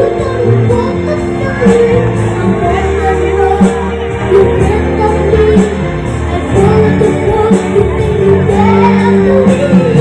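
A young child singing a melody over a backing track with a steady beat.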